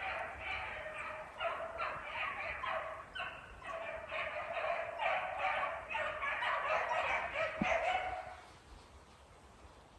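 A pack of beagles baying in chorus on a rabbit's scent trail, many calls overlapping, several a second; the baying fades out about eight and a half seconds in. It is the sign that the hounds are running the rabbit.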